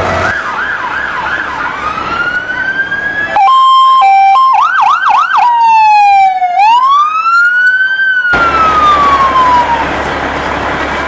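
Fire engine electronic sirens sounding and switching modes: a fast yelp, a rising and falling wail, and a two-tone hi-lo. The siren is loudest in the middle, where it cycles quickly through its tones, and ends on a long falling wail that fades out near the end.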